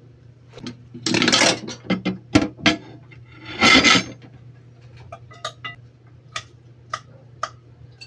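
Metal cutlery scraping and clinking against plates and a pot while rice and roast chicken are served, with two louder scrapes about a second in and near the four-second mark, then a row of light taps. A steady low hum runs underneath.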